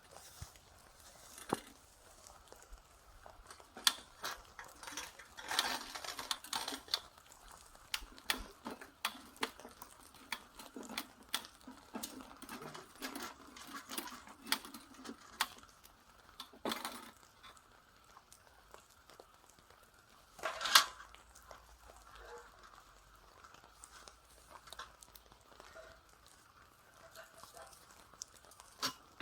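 Small objects being handled: irregular clicks and light knocks with stretches of rustling, and a sharper knock about 21 seconds in.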